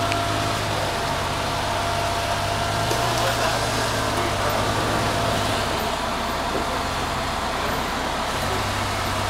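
Lifted Jeep Cherokee XJ's engine running at low revs as it crawls over boulders, steady, dropping off briefly about six seconds in and picking up again near the end.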